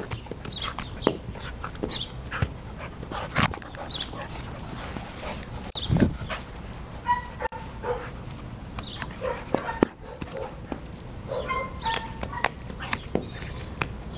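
A dog playing with a knotted rope toy: scuffling and repeated knocks, with a few short high whines, mostly about halfway through and again near the end.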